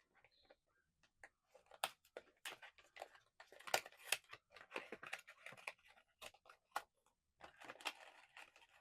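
Blind-box packaging being opened by hand: faint rustling and crinkling of cardboard and plastic wrap, with a string of small sharp clicks and tearing sounds.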